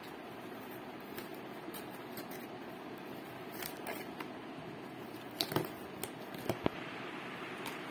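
Cardboard shipping box being handled and opened by hand, over a steady low hiss. In the second half there are a few sharp clicks and knocks from the cardboard being worked.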